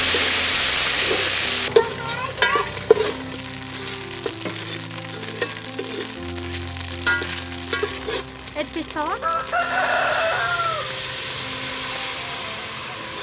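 Pounded Khmer spice paste sizzling and frying in hot oil in an aluminium pot as a metal ladle stirs it, loudest in the first second or two and again near the end. Chickens call through the middle, and a rooster crows about ten seconds in.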